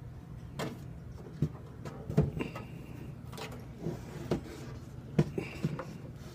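A handful of knocks and clunks as the 1971 Lakewood Country Aire P-23 box fan, switched off, is handled and turned to show its top, over a steady low hum.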